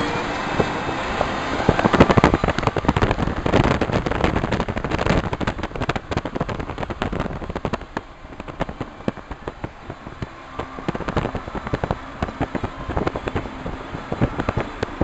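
Dense, irregular crackling and popping over the road noise of a moving car, loudest in the first half and weaker from about halfway through.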